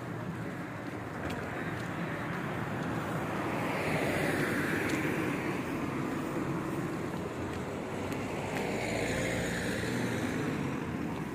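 Street traffic: passing cars' engine and tyre noise, swelling up twice, about four seconds in and again near the end, with some wind on the microphone.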